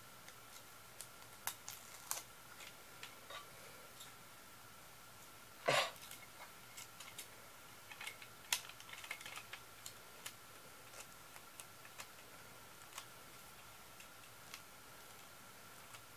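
Faint, scattered small clicks and taps, with one louder knock about six seconds in and a flurry of clicks a few seconds later, over a faint steady high whine.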